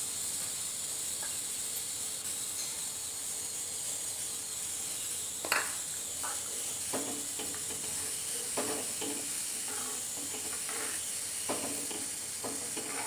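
Metal ladle knocking and scraping against a steel kadai while thick dal is stirred, a handful of short knocks from about five seconds in, the first the loudest. A steady hiss runs underneath.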